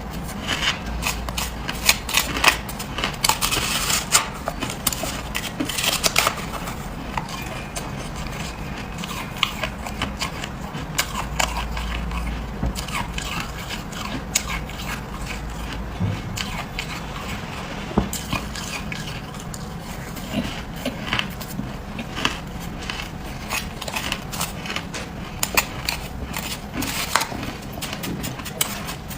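Freezer frost being bitten and chewed close to the microphone: a run of crisp crunches and crackles, densest in the first several seconds and sparser after.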